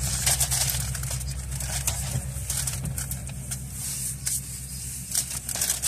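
Canadian National diesel locomotives running with a steady low drone as the freight train moves off, with a faint hiss and light ticking over it.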